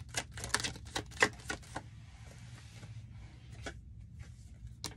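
Tarot cards being shuffled by hand: a quick run of sharp card clicks, about five a second, for the first couple of seconds. It then settles into a soft rustle with a couple of single clicks.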